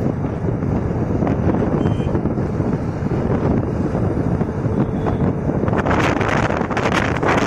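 Steady rush of wind buffeting the microphone, with road noise from a vehicle moving at speed. Harsher crackling gusts come in from about six seconds in.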